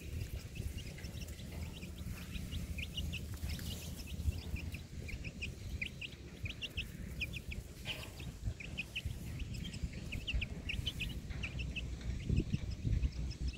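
Many short, high-pitched chirping calls, coming in quick irregular clusters, over a steady low rumble.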